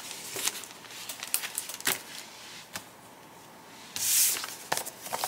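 A paper envelope being handled and opened: light paper rustles and small taps, with a short louder rasp of paper about four seconds in.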